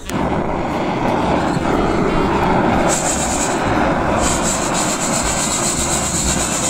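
A gas canister stove's burner running with a steady hiss, starting suddenly. From about 3 seconds in, green coffee beans rattle and rub in a wire-mesh hand roaster as it is shaken over the flame, in stretches of a second or more.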